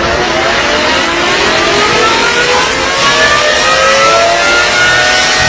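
Motor-driven music siren spinning up: one tone with its overtones rises smoothly in pitch and levels off near the end, the wind-up before it plays its noon melody.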